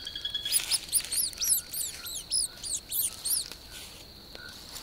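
Mouse squeaking sound effect: a quick run of high squeaks, about four a second for some three seconds, over the steady chirring of crickets.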